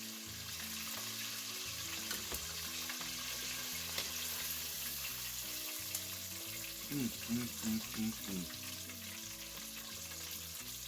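Chicken deep-frying in a pot of hot vegetable oil: a steady crackling sizzle with a few sharp pops. A short hummed voice sound about seven seconds in.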